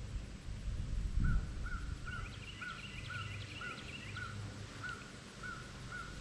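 A bird calling over and over, a short hooked call about twice a second, starting about a second in. A few higher, quicker chirps join for a couple of seconds in the middle, over a low rumble.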